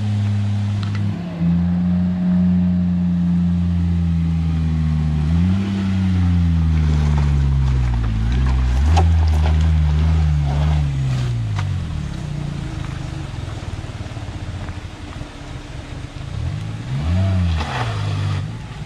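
Maruti Suzuki Omni van's small three-cylinder petrol engine revving under load as the van drives up a rough dirt track, its pitch rising and falling several times, with scattered knocks in the middle.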